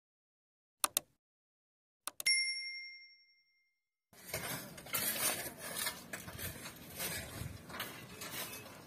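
Subscribe-button sound effect: two quick mouse clicks, then another click and a bell ding that rings out and fades. From about four seconds in, outdoor noise of hand shovelling, with sand and stones scraping and clinking as they are loaded into dump trucks.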